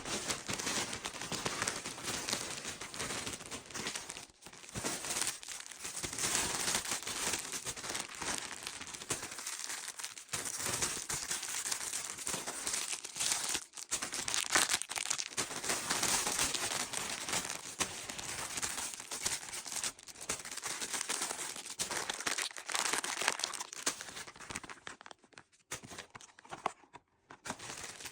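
Packaging being crinkled, handled and torn open by hand: a continuous crackling with a few brief pauses.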